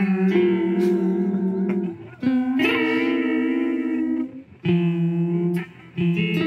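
Electric guitar through an Old Blood Noise Endeavors Reflector pedal in its pitch-vibrato ('wrinkle') mode: a few chords, each let ring with a wavering pitch, with short breaks between them. With the modulate knob set just off unison, it sounds a bit out of tune.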